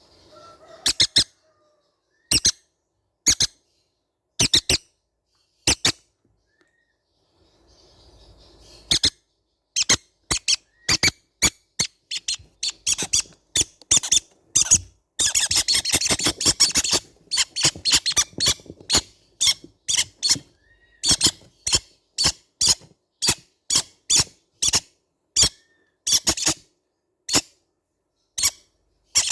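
Baby green-cheeked conures giving short, sharp squeaky chirps. A few come spaced apart at first, then from about a third of the way in they come in a quick run, thickest in the middle.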